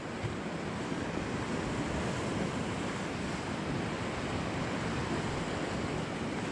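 Steady wash of sea surf breaking against the rocks, with wind on the microphone.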